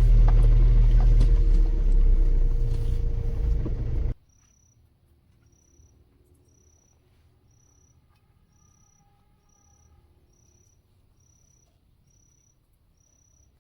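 A vehicle's steady low driving rumble with a constant hum cuts off suddenly about four seconds in. After it, in near quiet, a cricket chirps at an even pace, a little faster than once a second.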